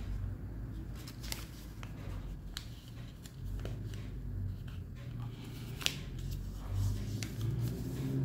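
Origami paper being folded and pressed into creases by hand: scattered short crisp rustles and clicks of the paper, over a low steady background rumble.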